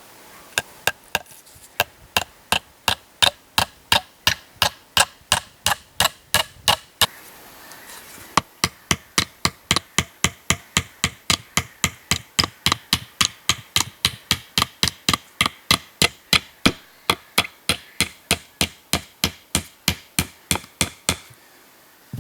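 Repeated hammer blows, about three a second, in two long runs with a short pause about seven seconds in.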